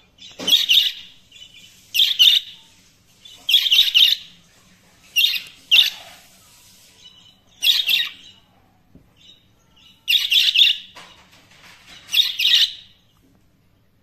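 Two pet budgerigars chirping in about eight short, loud bursts of rapid chatter, separated by brief pauses: the contented chirping the owner calls happy budgie noises.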